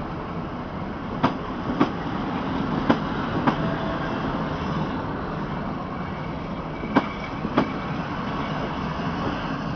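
Passenger train coaches rolling past close by: a steady rumble of wheels on rail, broken by sharp clacks in pairs about half a second apart, three times, as the wheels of each bogie cross rail joints.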